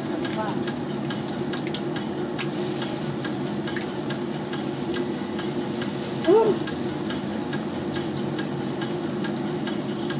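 Spring rolls of glutinous rice (turon malagkit) frying in hot oil in a wok: steady sizzling with scattered small crackles of popping oil. A brief pitched sound that rises and falls stands out about six seconds in.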